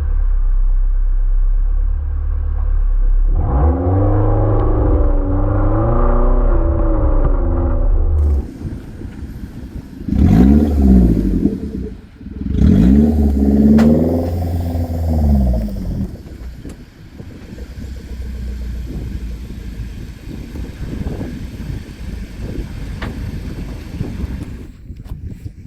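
An off-road 4x4's engine running with a heavy low rumble. It revs up and down three times, about 4 to 8 seconds in, then around 10 and 14 seconds in. After that it settles to a lower drone with loose clattering and scraping.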